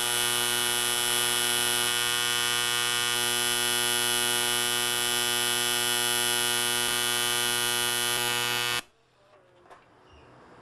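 TIG welding arc buzzing steadily as filler rod is fed into the weld pool. The buzz cuts off abruptly near the end, leaving near silence with a couple of faint clicks.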